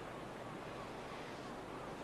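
Steady wind blowing, an even rushing hiss with no distinct events.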